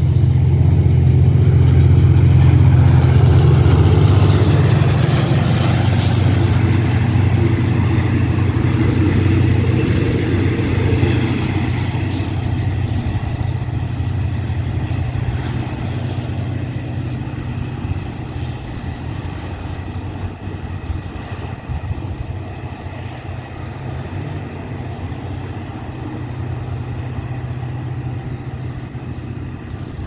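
Diesel-electric locomotive GEK4043 and its passenger coaches passing: a loud, steady low engine hum with the running noise of the coaches on the rails, loudest in the first few seconds, then fading steadily as the train draws away.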